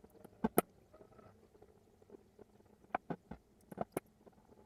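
Sharp clicks and taps of small hard parts being handled, a close pair about half a second in and a quick cluster around three to four seconds in.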